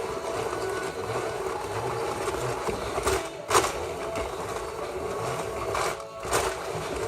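Toy ice-cream maker filled with ice and salt being churned: a steady mechanical whirring, with one louder knock about three and a half seconds in.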